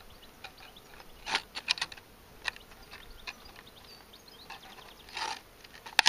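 Scissors snipping into a thin plastic drink bottle: a string of short, sharp snips and clicks, with a brief crinkle of the plastic about five seconds in.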